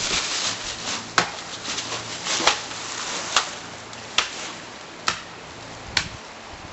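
A series of sharp knocks or strikes, about one a second, getting slightly fainter.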